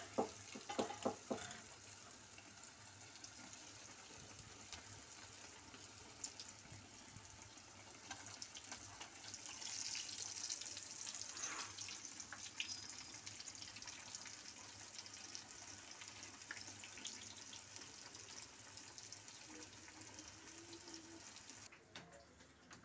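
Meat-filled dough patties frying in plenty of hot oil in a pan: a steady sizzle with fine crackles, growing louder around ten seconds in.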